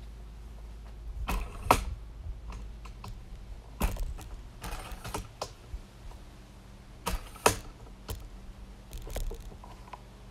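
Irregular hard plastic clicks and light knocks in small clusters, from a Work Sharp Ken Onion belt knife sharpener and its angle guide being handled.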